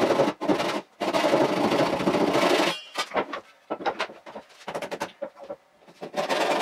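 Hand saw cutting through a wooden bench leg, sped up fourfold so the strokes run together into a rapid chatter. The sawing stops just under three seconds in, giving way to scattered knocks and clatter as the wood is handled, then starts again near the end.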